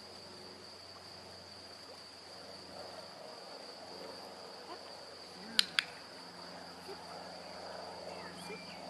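Crickets chirring steadily in the grass, with two sharp clicks in quick succession a little past halfway.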